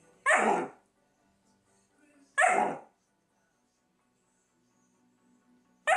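Berger Picard puppy barking at play: three short, sharp barks about two seconds apart, the last near the end.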